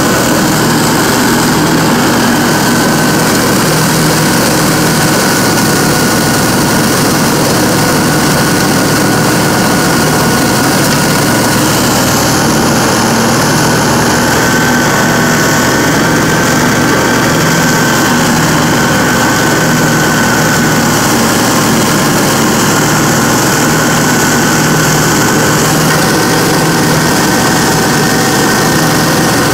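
Dixie Chopper zero-turn riding mower running steadily with its blades engaged, chopping up dry leaves as it drives, with a thin steady whine over the engine.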